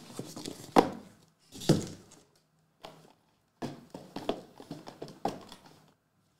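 Small cardboard boxes of trading cards being handled and set down on a desk: a series of separate knocks and thuds, the loudest about a second and a half in, with a cluster of lighter knocks a couple of seconds later.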